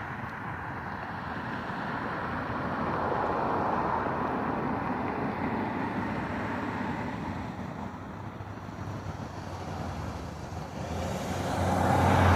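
Steady road traffic noise: the rushing hiss of passing cars swells and fades, and grows louder near the end as a low hum builds.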